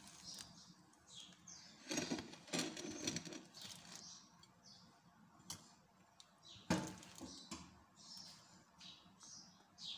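Faint, repeated chirping of small birds, with a few light knocks and clinks as a spatula and plate are handled, the sharpest about two-thirds of the way through.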